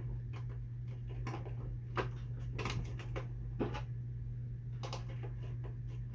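Scattered light clicks and taps of plastic being handled, as the hard body and body pins of an RC crawler are fitted back on, about seven irregular ticks over a steady low hum.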